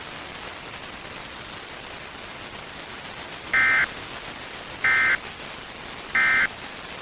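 Three short bursts of Emergency Alert System end-of-message (EOM) data tones, the warbling digital code that closes an alert, sent about a second and a third apart over a steady hiss.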